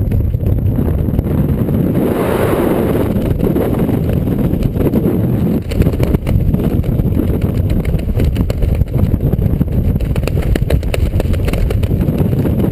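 Wind buffeting a GoPro's microphone during a descent under a parachute canopy: a loud, steady low rumble, with crackling from the camera being handled near the end.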